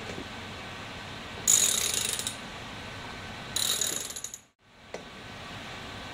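Ratchet wrench with a 5/16-inch socket clicking in two quick runs of rapid clicks as the handle is swung back between tightening strokes, driving a screw and sealing washer into the valve piston.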